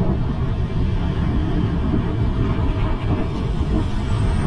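Steady, loud wind rumble on the microphone of a moving bike, mixed with traffic and road noise.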